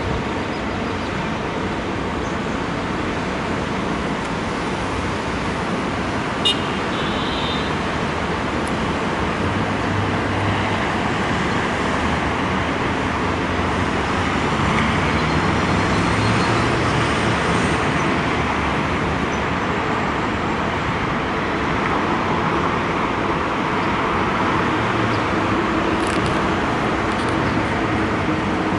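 City road traffic heard from a high-rise: a steady wash of cars and buses passing on the streets below, with one brief sharp click about six and a half seconds in.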